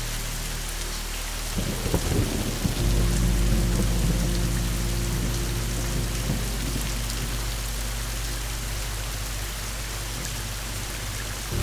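Steady rain with a clap of thunder about a second and a half in, its low rumble rolling on for several seconds and fading away.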